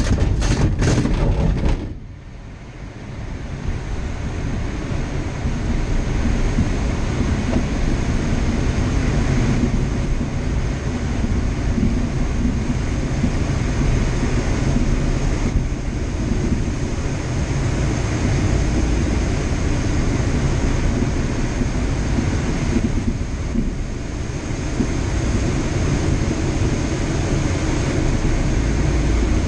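A K13 glider's main wheel rumbles and rattles over a grass airfield for about two seconds. Then steady wind rush of air over the cockpit builds and holds as the glider climbs behind the tow plane.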